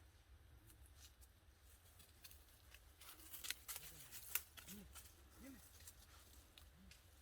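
Faint crackling of dry leaf litter and twigs on the forest floor underfoot, with a burst of sharp snaps about three to four and a half seconds in. A few short, soft low sounds that rise and fall in pitch follow toward the end.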